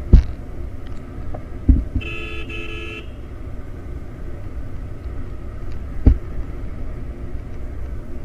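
Motorcycle riding with steady low engine and wind rumble and a few dull thumps. A vehicle horn sounds once for about a second, about two seconds in.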